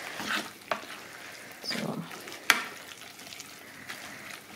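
A utensil stirring a wet spinach, egg and feta quiche filling in a clear bowl: soft squelching with a few sharp clicks against the bowl, the loudest about two and a half seconds in.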